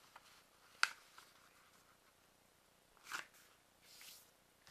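Sheet of origami paper being folded and smoothed flat on a wooden table: a sharp tap about a second in, then short paper rustles around three and four seconds in.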